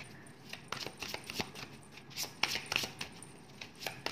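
Tarot cards being shuffled and handled: an irregular run of short, crisp card snaps and taps, several a second.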